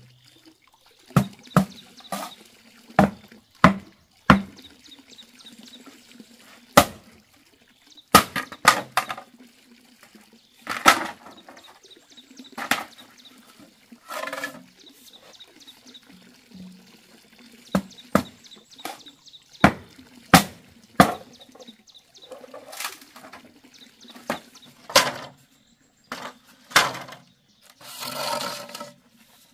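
Bamboo culms being split lengthwise: irregular sharp knocks and cracks from blows of a splitting tool, some followed by a short crackle as the culm splits. A longer splitting crackle lasts about a second near the end.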